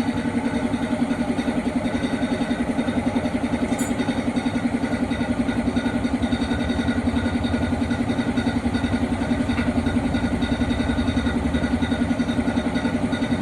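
A small engine running steadily at idle with a fast, even pulse.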